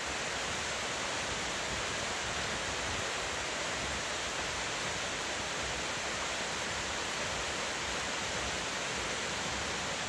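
Waihi Falls, a 25-metre waterfall, pouring into its pool with a steady, even rush of falling water.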